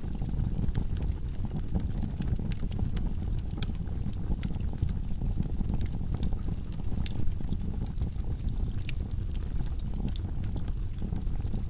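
Logs burning in a wood fireplace: a steady low rush of flame with frequent irregular crackles and sharp pops.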